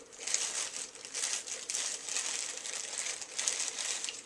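Plastic packaging crinkling and rustling in irregular bursts as it is handled and unwrapped from a newly unboxed smartphone holder.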